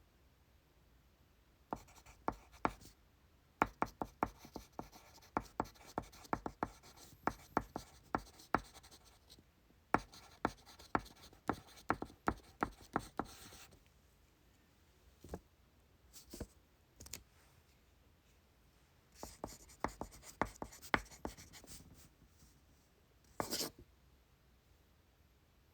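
Pencil writing on paper: two long spells of quick tapping, scratching strokes, a few lone strokes between them, and a brief rustle near the end.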